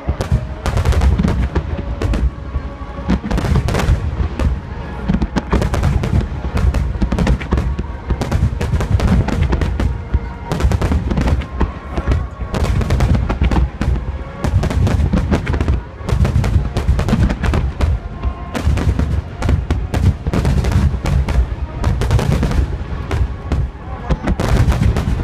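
A dense, continuous barrage of fireworks: many booms and cracks overlapping with a heavy low rumble, and music playing underneath.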